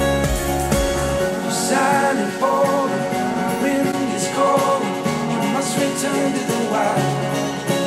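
A song with singing, played back through Focal Alpha 80 studio monitors and picked up by a microphone in the room; the deep bass drops out about a second in. Partway through, playback switches to JBL 306P MKII studio monitors.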